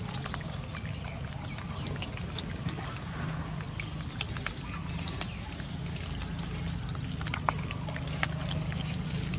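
Long-tailed macaques jostling against the microphone: rustling and a few sharp little clicks over a steady low rumble.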